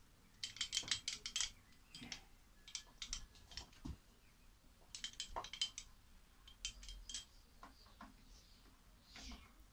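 Light metallic clicking and clinking in several short runs as a bench milling machine's handwheel is turned and a block of wood is set under the drill; the machine's motor is not running.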